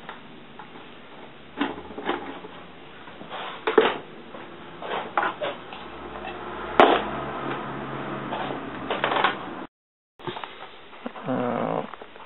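Scattered knocks and clicks of tools and small objects being handled and set down on a wooden workbench, a sharp click about seven seconds in the loudest. A brief voice is heard near the end.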